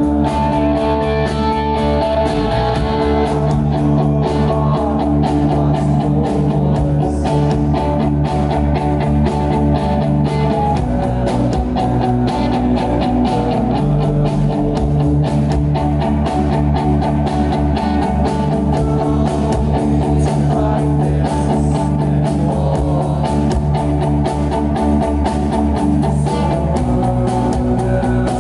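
Live rock band playing at full volume: electric guitar, bass and drum kit in a steady driving beat.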